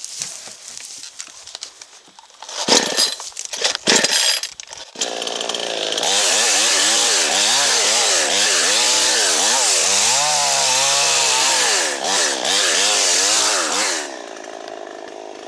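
Chainsaw starting up about five seconds in after a couple of loud rasps, then running at full throttle while cutting through a small standing dead ash, its pitch wavering as the engine labours in the wood. Near the end it drops back to a steady idle.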